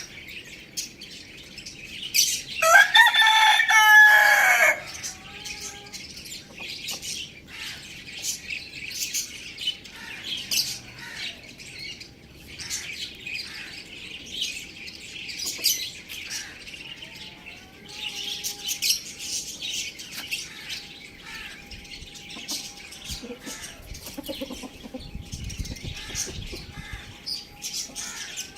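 A rooster crows once, loudly, for about two seconds a few seconds in, over constant rapid chirping of small birds.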